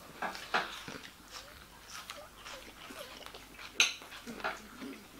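A man biting into a chicken fillet burger in a soft bun and chewing it with his mouth closed: scattered soft mouth clicks and smacks, with one sharper click about four seconds in.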